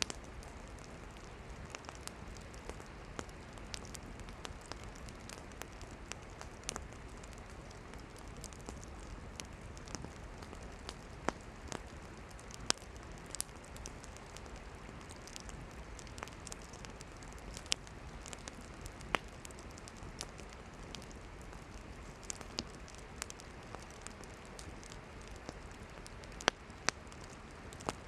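Wood campfire crackling: irregular sharp pops and snaps, a few of them louder, over a steady hiss of the burning fire.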